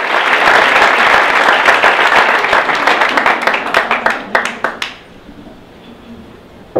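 Audience applauding. The dense clapping thins to a few scattered claps and dies away about five seconds in.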